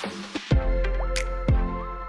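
Background music with a steady beat: drum hits recurring under held synth notes.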